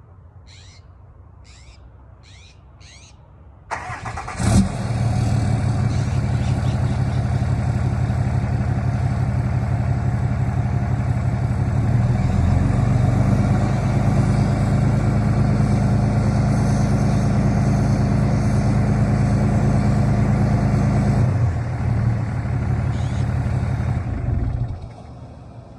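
A 6.7L Cummins inline-six turbo diesel in a 2012 Ram 2500, heard through a 4-inch turbo-back straight exhaust with the stock muffler. The starter cranks about four seconds in and the engine fires. It idles steadily for about twenty seconds, then shuts off near the end.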